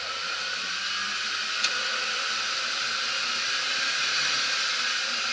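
Winch motor whining steadily under load, its pitch gliding upward in the first second or so, with one sharp click about one and a half seconds in.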